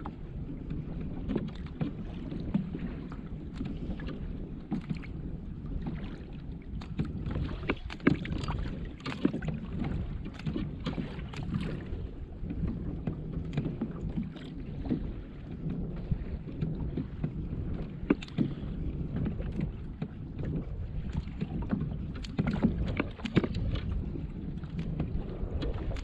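Water slapping and lapping against a fishing kayak's hull, with wind on the microphone and many small scattered knocks and ticks.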